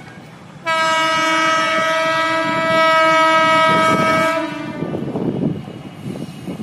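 Horn of an approaching Indian Railways locomotive sounding one long, steady blast of about four seconds, starting sharply. A low rumble of the oncoming train follows.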